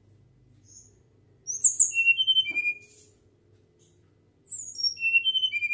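Caged flycatcher (sikatan) singing two quick phrases of short, high whistled notes, each dropping from very high notes to lower ones. The first comes about a second and a half in, the second near the end.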